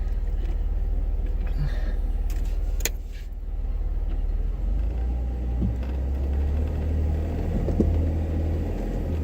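Off-road vehicle's engine running with a steady low rumble as it is driven up a rocky trail, with a single sharp click about three seconds in.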